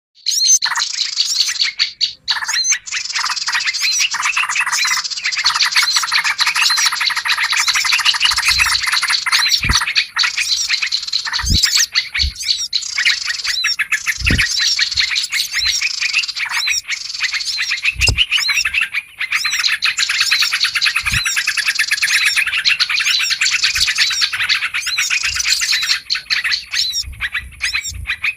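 Bird-lure recording: a dense, continuous chorus of many small songbirds chirping and twittering, with yellow-vented bulbul (trucukan) calls among them. A few brief low thuds sound here and there.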